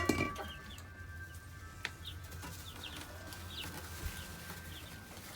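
Sapphire Gem chicks, 1–2 weeks old, peeping in short, scattered chirps. A sharp clink sounds right at the start.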